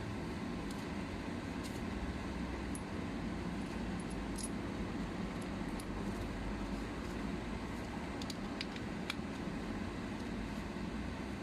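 A few scattered light metallic clicks from handling a ratchet screwdriver, over a steady low background hum.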